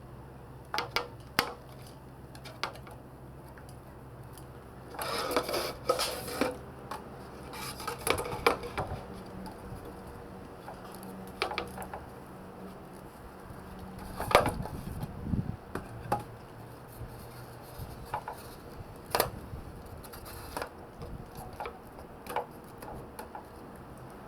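Irregular metallic clinks and knocks of steel round bars and flat bar being handled and fitted together, in scattered clusters with pauses between.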